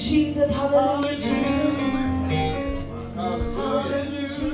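Music with singing: a voice over instrumental accompaniment.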